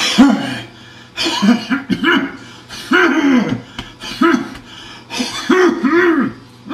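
Domestic cat hacking up a hairball: a run of about eight loud, irregular retching heaves, each a gagging croak that rises and falls in pitch.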